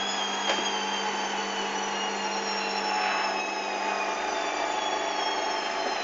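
Hoover Dynamic washing machine spinning a very unbalanced load on its final spin: a steady motor hum with high whining tones that slowly fall in pitch, and a single click about half a second in.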